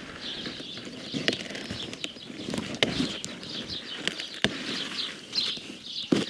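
Rhubarb stalks being pulled from the crown by hand, a few sharp snaps as they come away, with small birds chirping throughout.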